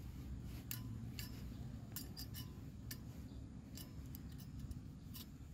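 Folding wire pot-support legs of a compact camping gas stove being swung open, making a series of irregular sharp metal clicks and clinks.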